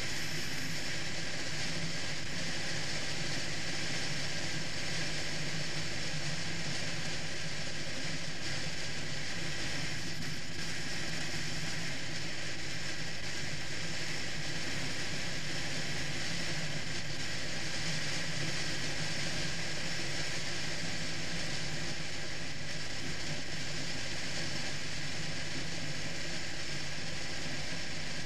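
Triumph Rocket III's three-cylinder engine running steadily at cruising speed, mixed with constant wind and road noise rushing past the bike-mounted microphone.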